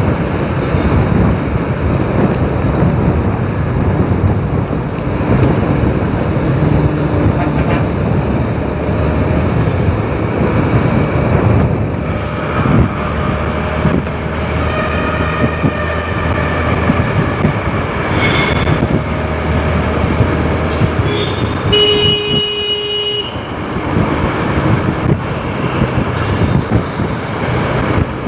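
Motorcycle riding through city traffic: a steady engine and road rumble with wind on the microphone, and other vehicles' horns honking, the loudest a single blast of a bit over a second about 22 seconds in.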